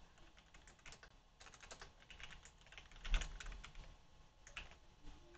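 Typing on a computer keyboard: faint key clicks in short quick runs with pauses between them.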